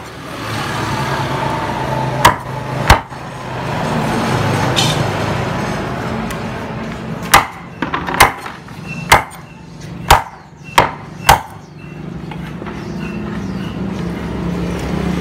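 Hand-forged Phaluong cleaver chopping pieces of Muscovy duck against a round chopping block: eight sharp chops, two a little over 2 s in, then a run of six about a second apart between about 7 and 11 s.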